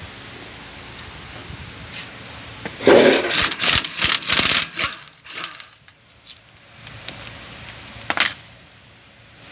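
A rapid run of metallic clanks and clinks lasting about two seconds, then one more sharp clank near the end: metal tools and parts knocking together during work on a pickup's front wheel hub.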